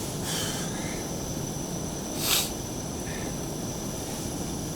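Portable gas camping stove burner running steadily under a pot of meat coming to the boil, with a short hiss a little past two seconds in.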